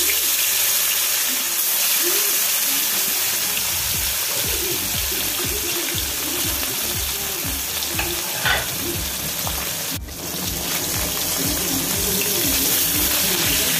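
Whole bata fish shallow-frying in hot oil in an aluminium kadai, a steady dense sizzle. Near the end a spatula scrapes the pan as the fish are turned.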